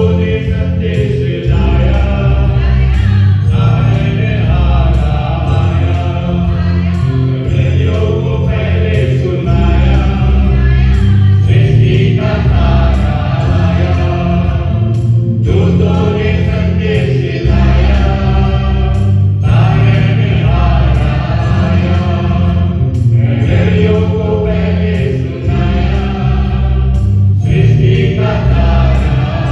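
Church choir of men and women singing a hymn into microphones, amplified through the church's sound system, with guitar accompaniment and steady low notes underneath. The singing stops right at the end.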